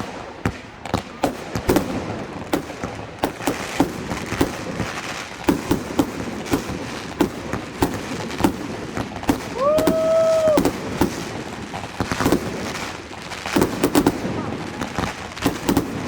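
Fireworks going off: many sharp bangs and crackles in irregular quick succession. About ten seconds in, a held tone of about a second rises, holds and falls.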